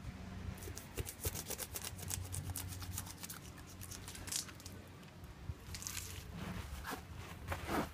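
Knife blade slicing through a large fish's skin and flesh on a wooden board: a quick run of small crackling scrapes and clicks through the first half, then scattered scrapes as the cut goes on.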